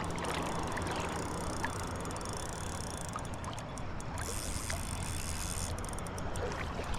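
Steady rush of flowing creek water with a few faint clicks.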